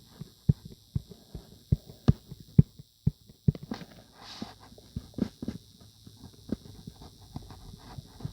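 A quick series of sharp, irregular taps, two or three a second, that thin out and soften about halfway through.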